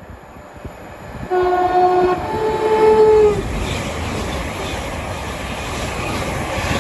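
Thameslink Class 700 electric train sounding its two-tone horn, a lower note then a higher one, each about a second long, then running through the station with a loud, steady rush of wheel and air noise.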